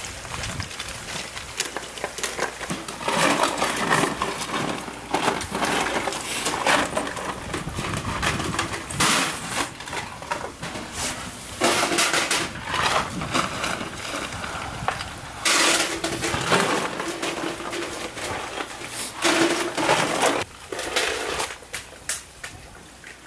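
Oyster shells knocking and clattering against each other during shucking, with frequent sharp clacks and several longer stretches of denser scraping and rattling.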